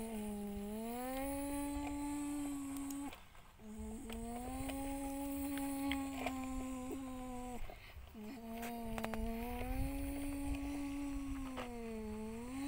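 A person humming a long, low drone that imitates a vehicle engine, held in three long breaths with short pauses between, the pitch dipping and rising smoothly.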